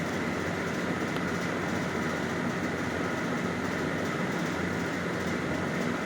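A steady mechanical drone: an even rush of noise with a few faint held tones, unchanging throughout.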